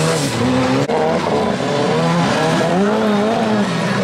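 Autocross touring-car engines revving hard, the pitch rising and falling again and again as the cars slide through dirt corners. There is a brief break about a second in.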